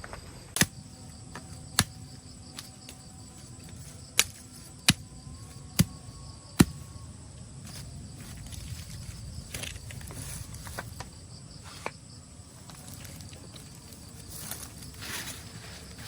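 Steady high-pitched chirring of crickets or other insects, with about seven sharp single knocks or clicks, most of them in the first seven seconds.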